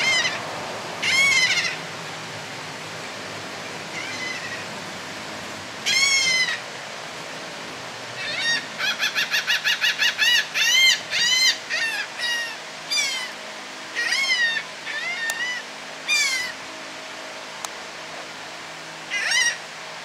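A group of laughing gulls calling: drawn-out, rising-and-falling wailing calls, with a fast run of about ten short yelping notes around nine seconds in. Calls keep coming one after another until about 16 seconds, and a last one comes near the end.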